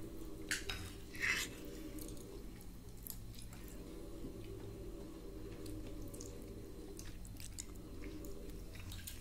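Faint eating sounds at a table: scattered light clicks of cutlery on dishes and chewing, over a low steady hum.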